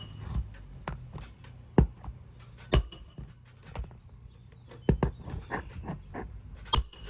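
Metal roofing hand tools knocking and tapping at shingle nails on an asphalt shingle roof: irregular sharp strikes, a few loud ones with a short metallic ring, over a steady low hum.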